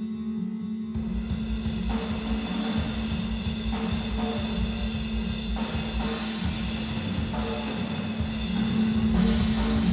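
Live band playing on stage during a sound check: fast drumming on a full drum kit, with kick and snare, comes in about a second in over a held low note.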